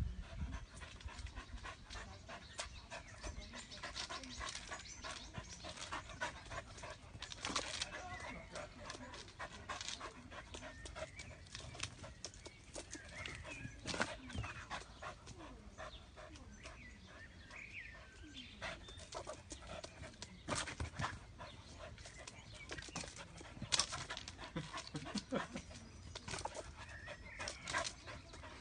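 An excited dog panting hard and whining now and then as it jumps up against a tree trunk, with short scrabbling sounds of its claws on the bark.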